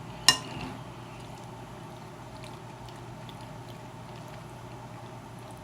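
A single sharp clink of an eating utensil against a dish about a third of a second in, ringing briefly, then a few faint small clicks over a steady low background hum.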